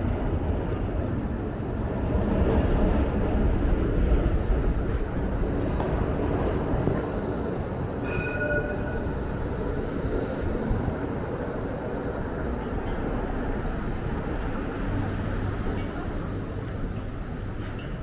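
A tram running by on its rails, a continuous rumble that swells about two to five seconds in, with a faint high steady whine from wheels or motor.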